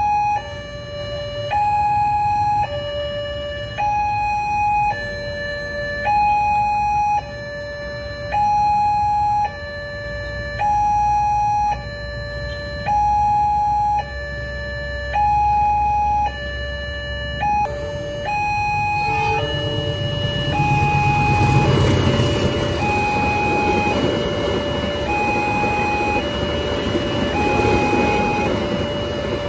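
Railway level-crossing warning alarm sounding an electronic two-tone signal, alternating high and low, each tone held under a second. From about 19 seconds in, a passing passenger train adds a rising rumble and rush beneath the alarm.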